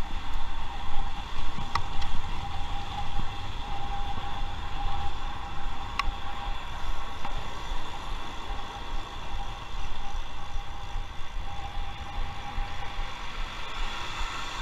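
Wind buffeting the microphone over tyre and road noise from a bicycle riding along a busy city street, with car traffic around it. Two sharp clicks, about two and six seconds in.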